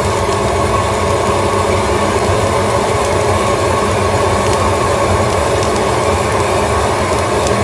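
Long-wand propane torch running steadily, its flame blasting into burning kindling.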